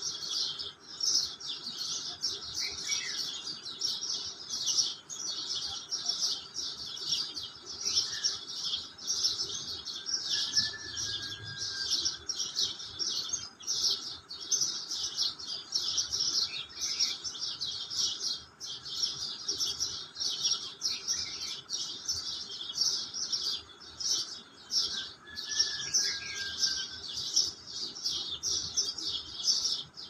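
A flock of house sparrows chirping densely and without pause in a dawn chorus. Twice, a longer, lower whistled note from another bird sounds through the chatter.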